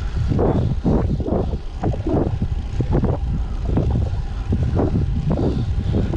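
Wind buffeting the microphone of a cyclist's action camera on a fast road-bike descent, a loud, uneven, gusty low rumble.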